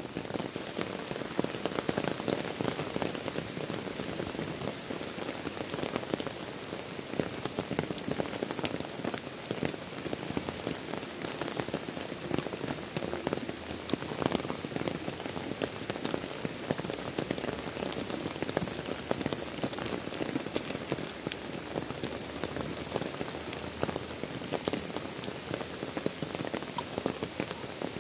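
Heavy rain falling steadily onto a lake's surface and the lakeside edge: a dense, even hiss flecked with countless small drop ticks.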